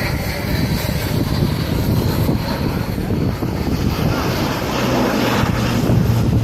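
Airbus A400M's four Europrop TP400 turboprops droning during a slow low pass with the gear down. A steady low propeller hum comes in more strongly in the last couple of seconds.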